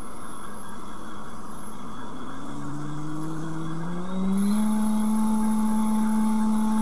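Small brushed DC motor spinning a plastic blade, running with a steady whir. About two and a half seconds in, its hum climbs in pitch over about two seconds as it speeds up, then holds steady and a little louder.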